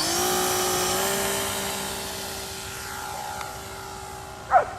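Kyosho M29 RC glider's motor and propeller whining at full throttle on launch: the pitch jumps up right at the start, then holds steady and slowly fades as the plane flies away. A dog yips near the end.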